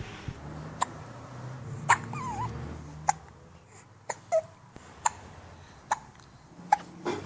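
A baby hiccuping repeatedly, with short sharp hiccups coming about once a second.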